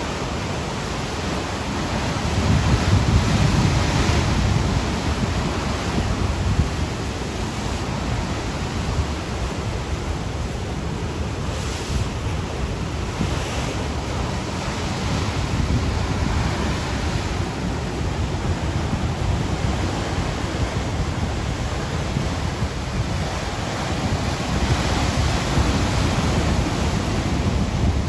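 Ocean surf: waves breaking and washing up a beach in a continuous rush, swelling louder about three seconds in and again near the end, with wind rumbling on the microphone.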